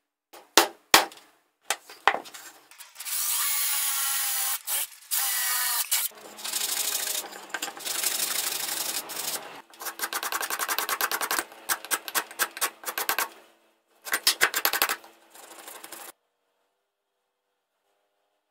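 A wooden mallet knocks a hand punch into a wooden board, three sharp strikes. Then comes a long scraping as a thin white rod is rubbed hard back and forth against a rough wooden block, at times in one steady pass and at times in quick strokes. It stops a couple of seconds before the end.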